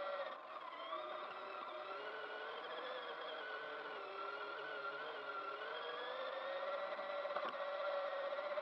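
Small electric motor and gear drive of a Kyosho Overland H2 Hummer RC car whining, its pitch wandering up and down with the throttle. A single click near the end.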